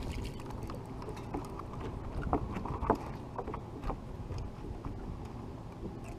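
A steady low rumble of wind and water around a bass boat, with a few sharp knocks and clicks about two to four seconds in as a hooked spotted bass is lifted aboard.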